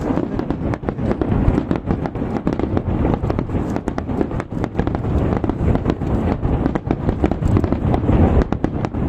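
Aerial fireworks in a continuous barrage, many sharp bangs in quick succession over a steady low rumble of overlapping bursts.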